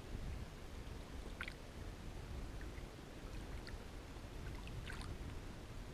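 Water lapping and trickling against a boat, over a steady low wind rumble, with a few small splashes about a second and a half in and again near five seconds.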